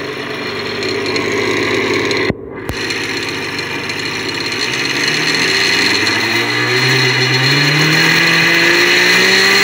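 Oster Regency Kitchen Center blender motor running with its blade spinning in the glass jar, a click and brief drop about two seconds in. From about five seconds the motor's pitch rises steadily and it gets louder as it speeds up.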